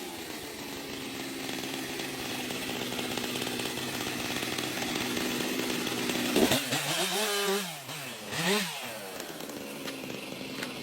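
Two-stroke chainsaw running steadily. About two-thirds of the way in there is a sharp crack, then the engine speed dips and climbs back twice before running steadily again.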